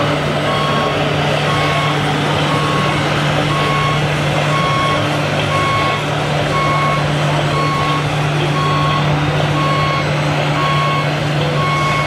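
Reversing beeper from an RC model truck's sound module, repeating evenly about one and a half times a second over a steady low drone from the model's simulated diesel engine.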